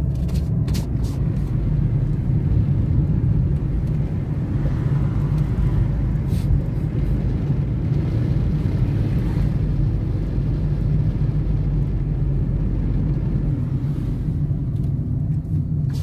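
Steady low rumble of engine and tyre noise inside the cabin of a Chevrolet car driving along a road, with a few light clicks in the first second.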